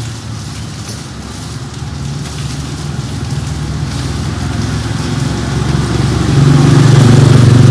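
Motorbike engine running on the street, getting much louder about six seconds in as it comes close.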